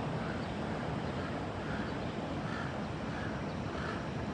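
Steady outdoor hiss of wind and distant traffic, with faint short high notes repeating about every second.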